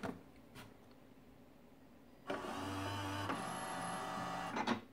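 Fargo HDP5000 card printer's internal motors running with a steady whir for about two and a half seconds, starting a little past two seconds in. The tone shifts partway through, and the run ends with a short knock, while the printer is busy reinitialising after its cover is closed.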